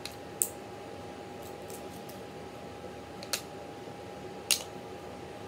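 Jonah crab claw shell cracking as it is pulled apart by hand: three sharp cracks, about half a second in, a little past three seconds and about four and a half seconds in, with a few fainter clicks between, over a steady faint hum.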